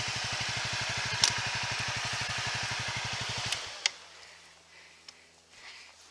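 Honda CRF250L's single-cylinder four-stroke engine idling with an even, rapid putter, which cuts off abruptly about three and a half seconds in. A sharp click follows just after, then it is quiet apart from faint small sounds.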